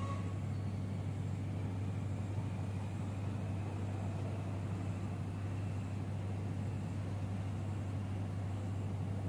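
Steady low machine hum, unchanging throughout, with faint outdoor background noise above it.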